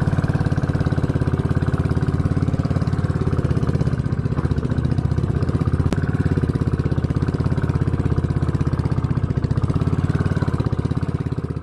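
Motorcycle engine running steadily at low revs, its exhaust beating in rapid, even pulses.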